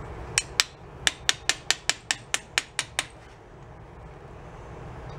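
A quick run of about a dozen sharp, hard clicks: two close together, then ten evenly spaced at about five a second, stopping about three seconds in.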